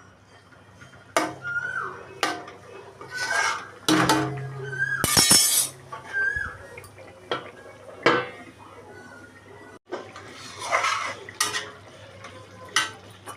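Metal kitchen utensils clinking and scraping against cooking pots and dishes: a string of sharp, irregular clinks with short scrapes in between.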